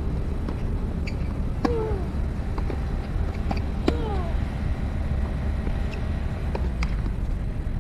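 Tennis rally on a hard court: sharp racket-on-ball strikes and ball bounces, two of the strikes each followed by a short falling grunt from the hitter, about two seconds apart. A steady low rumble of background noise runs under it.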